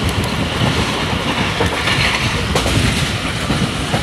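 Passenger train coach running along the track, heard from inside by the window: a steady rumble and clatter of the wheels on the rails, with a few sharp clicks.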